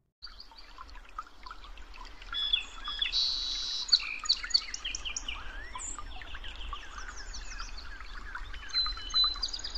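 A chorus of many wild birds calling, with short chirps, whistles and quick rising and falling notes overlapping one another.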